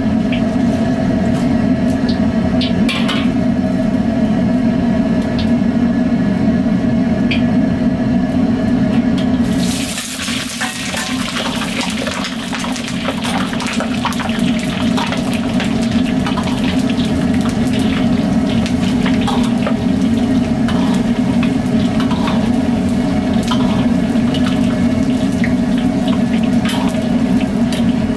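A wok stove's steady low rushing noise under a wok of oil. About ten seconds in, eggplant pieces go into the hot oil, which breaks into dense, vigorous sizzling and bubbling as they deep-fry.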